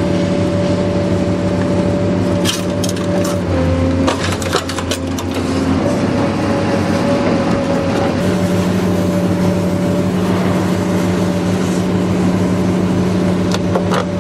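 LMD280 car dismantling machine running with a steady engine drone and a hydraulic whine that shifts in pitch as the claw works, tearing the wiring harness out of a scrapped car body. Clusters of cracking and snapping metal and plastic come about 2 to 5 seconds in and again near the end.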